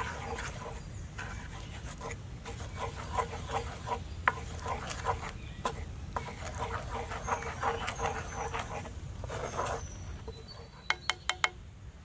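Wooden spoon stirring and scraping egg-and-flour batter in a cast-iron skillet: a quick, uneven run of wet scrapes and clicks. Four sharp taps come near the end.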